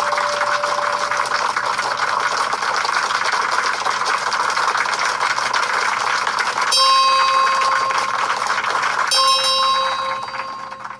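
Intro sound effects: a steady rushing hiss, with two bell-like chime tones struck about seven and nine seconds in, each ringing on for a couple of seconds, all fading out near the end.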